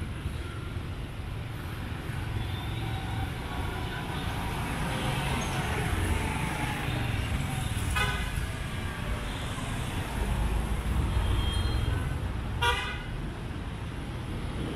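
Street traffic rumbling with motorbikes passing close by. A vehicle horn toots briefly about eight seconds in, and again more loudly near the end.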